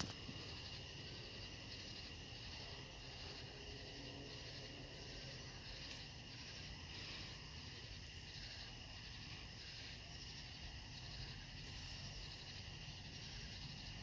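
A chorus of night insects chirping: a steady high trill with a pulsing beat at about two pulses a second, over a faint low rumble.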